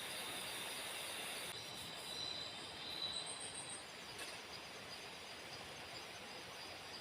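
Rain falling steadily, a hiss, with insects calling over it: a high trill and a short run of quick chirps about three seconds in.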